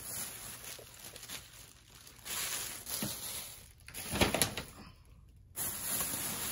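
Rustling and crinkling as shopping items are handled, with one sharp knock a little past four seconds in.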